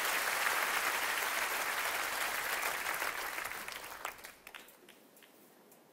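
Studio audience applauding, the applause fading out about four seconds in and ending in a few last scattered claps.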